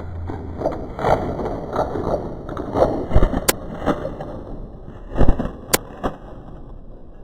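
Scuffing and rustling of movement, with two sharp cracks about two seconds apart, typical of airsoft guns firing.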